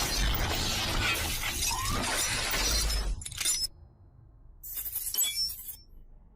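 Intro sound effects of glass shattering and breaking, a dense crashing, swirling noise that cuts off about three seconds in, followed by a short burst and then a brief high, glittery tinkle a second and a half later.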